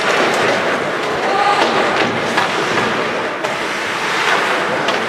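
Ice hockey play on a rink: a steady scraping hiss of skates on the ice with scattered sharp clacks of sticks and puck.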